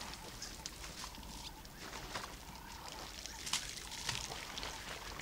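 Wild birds calling in short, high chirps over a steady outdoor background.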